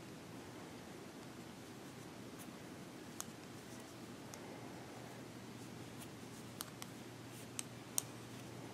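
Yarn rustling and knitting needles being worked while purling stitches, with a few light clicks of the needles, most of them in the second half.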